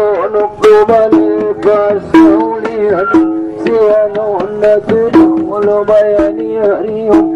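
Traditional Mandailing wedding procession music: an ornamented, wavering melody held in long notes over quick, steady drum strokes.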